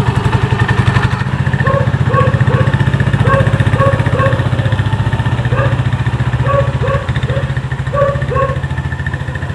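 Motorcycle engine of a motorcycle-and-sidecar tricycle running steadily as it drives a lap, with short squeaky calls repeating over it every second or so.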